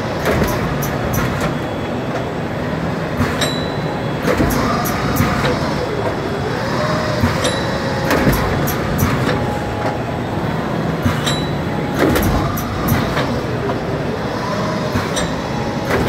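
Gur-ish DRM-ROLL automatic bag-on-roll machine running: steady mechanical noise from its sealing and perforating drums and two-lane winder, with many small clicks and a sharper clack with a brief high ring about every four seconds.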